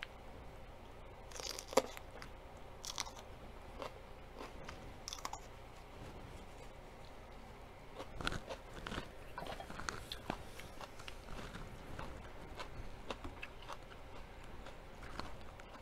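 Close-up crunching and chewing of crisp fried vegetable chips. A few sharp bites come about two, three and five seconds in, then a denser run of crunching chews from about eight seconds.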